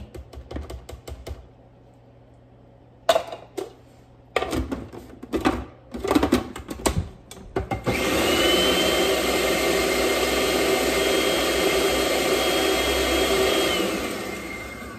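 Plastic clicks and knocks as a food processor bowl and lid are fitted, then about eight seconds in the electric food processor motor runs steadily with a faint high whine, whipping coconut oil into blended tofu, and winds down near the end.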